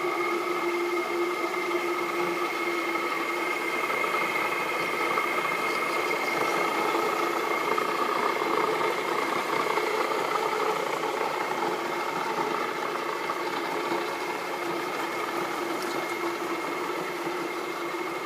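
Oliver 585 grinder's Ohio electric motor, about a third horsepower, running with a steady hum and whine, easing off slightly near the end.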